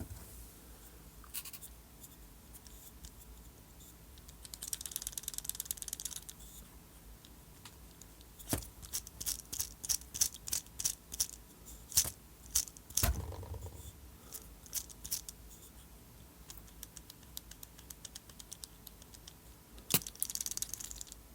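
Hand tools working on the car: a quick run of ratchet-like clicking about five seconds in, then a string of sharp metallic clicks and clinks with a dull knock among them, and one more loud click near the end.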